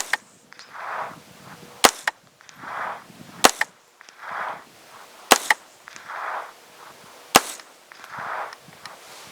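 Five shots from a Smith & Wesson M&P 15-22 short-barreled rifle in .22 LR, fired semi-automatically about one every two seconds. Each sharp crack is followed about a second later by a softer, drawn-out sound.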